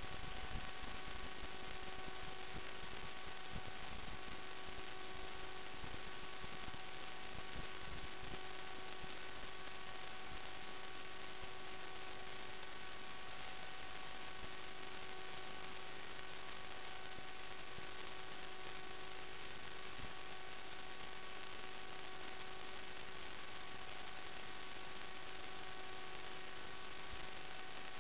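Steady electrical hum over static hiss: one constant tone with evenly spaced overtones that never changes pitch, the audio of an analog FPV video link recorded off the receiver, with no changes that follow the quadcopter's throttle.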